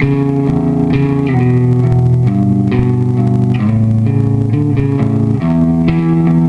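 Electric guitar playing a line of plucked, sustained notes that change pitch about once a second, with an even, held level, as through a compressor pedal.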